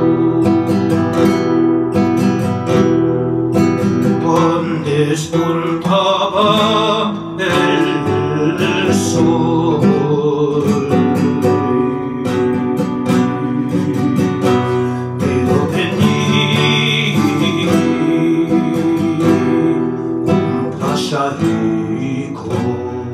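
Nylon-string Spanish guitar playing an instrumental passage of a Sephardic song, mixing strummed chords with picked melodic runs. A voice sings briefly with vibrato about five seconds in and again midway.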